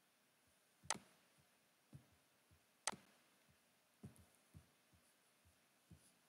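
Computer mouse clicking: three sharp clicks, the first two about two seconds apart and the last at the very end, with softer low taps between them.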